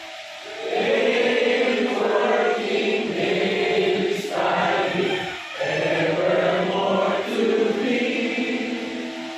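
A group of voices singing together in slow, held phrases, like a choir or chant, with short breaks between phrases.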